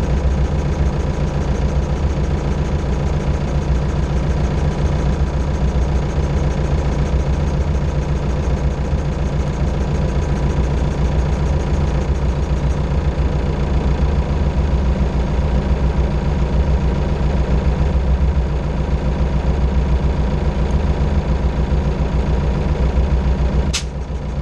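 MB Trac 800 tractor's four-cylinder diesel engine idling steadily. A single sharp click comes near the end, after which the sound is slightly quieter.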